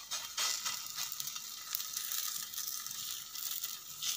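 Coiled meloui (msemen) flatbread dough sizzling in a hot, heavy pan, a steady frying hiss with scattered crackles.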